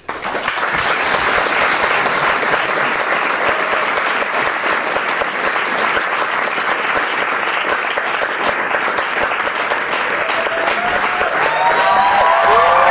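Audience applauding: clapping breaks out suddenly and goes on loud and steady. A few voices call out over it near the end.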